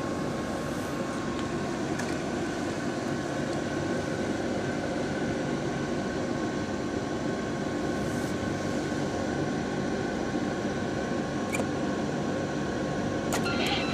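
Steady mechanical hum of a hot-snack vending machine running, with a couple of faint clicks near the end.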